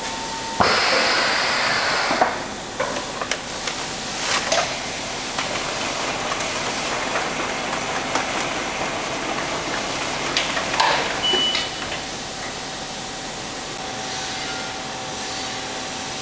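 Packaging line machinery running with a steady hum while a powered pallet conveyor moves a stretch-wrapped pallet along. About half a second in there is a hiss lasting under two seconds, and scattered metal clanks and knocks follow, a cluster of them a little before the end.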